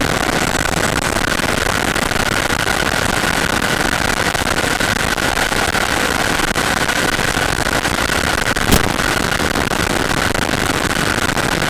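RC Avanti model jet in flight, heard from on board: its power unit runs with a steady whine over loud wind rush, and a single sharp click about nine seconds in.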